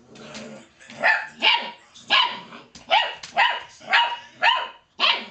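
Puppy barking repeatedly in short, high yapping barks, about eight of them roughly half a second apart, starting about a second in.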